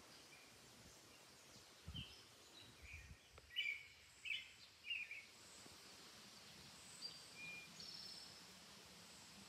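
Quiet outdoor ambience with a few short bird chirps about three to five seconds in, the loudest near the middle, over a faint steady background hiss. Two soft low thumps come just before the chirps.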